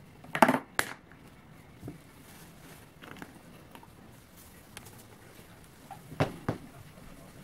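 Walnuts clattering sharply on a metal tray as a dog grabs one with its teeth, two or three hard clicks in quick succession. Faint ticks of its claws on a tiled floor follow, then two more sharp clicks about six seconds in as it handles the nut.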